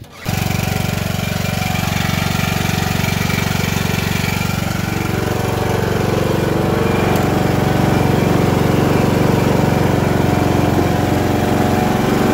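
Craftsman riding lawn mower's engine running steadily. It cuts in abruptly just after the start and gets slightly louder in the second half.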